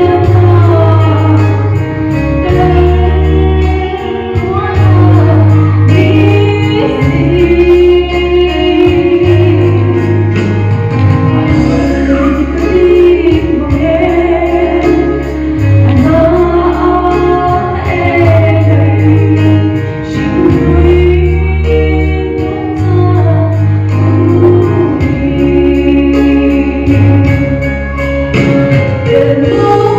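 A Mizo gospel song: a woman singing a slow melody over band accompaniment, with deep bass notes changing about every two seconds.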